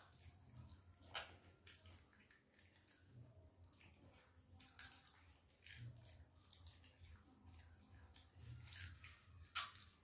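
Faint wet chewing and crunching of pani puri, the crisp hollow puris filled with spiced water, with a few sharp crunches, the loudest about a second in and near the end.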